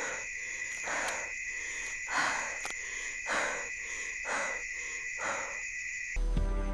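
Night-time nature ambience: a steady high insect-like drone, with an animal call repeating about once a second. Near the end it cuts off abruptly and music begins.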